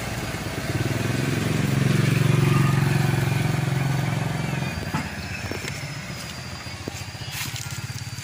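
Mitsubishi Canter truck's diesel engine running. It grows louder for a couple of seconds as it is revved, then settles back to a lower, steady run about halfway through.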